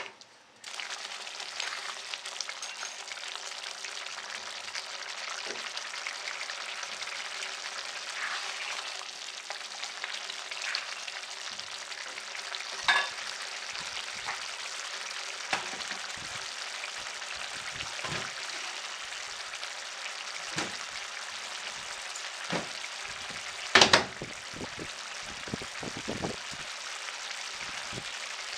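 Paneer and potato curry cooking in a pan: a steady sizzling hiss with scattered pops, and a few sharp knocks, the loudest near the end.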